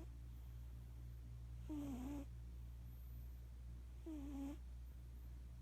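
Domestic cat snoring in its sleep: a short, pitched snore about half a second long roughly every two and a half seconds, the tail of one at the very start and two full snores after it.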